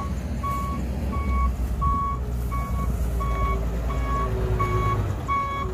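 Dump truck's reversing alarm beeping evenly, about three short beeps every two seconds, over the truck's engine running in a low rumble as it backs up.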